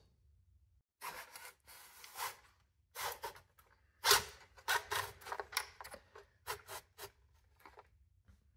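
Irregular scraping and rubbing as a 3D-printed plastic battery case is worked into a carbon bike frame's down tube: a string of short, uneven scrapes starting about a second in.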